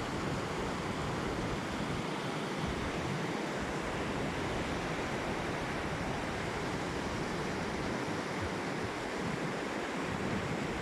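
Waterfall rushing: a steady, dense noise of falling water that holds an even level throughout.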